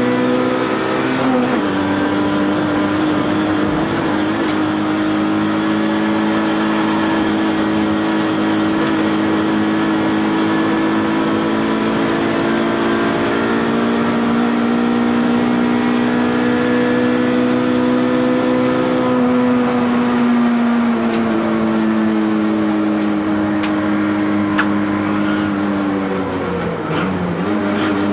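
Toyota AE111 Trueno's 4A-GE 20-valve four-cylinder heard from inside the cabin, pulling hard on track. The revs drop at a gear change about a second in, climb slowly through a long pull, drop again at another gear change about three-quarters through, and dip briefly near the end before picking up again.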